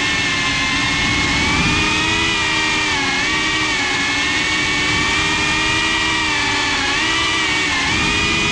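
FPV quadcopter's motors and propellers whining, heard from the drone's on-board GoPro. The pitch rises and falls with the throttle, dipping briefly twice and climbing again near the end.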